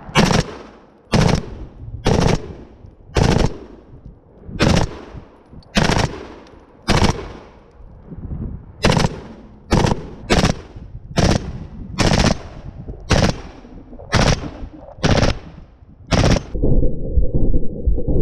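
Heckler & Koch short-barrelled rifle firing about seventeen separate shots or very short bursts, roughly one a second, each report ringing off briefly. Near the end the reports give way to a steadier, lower sound.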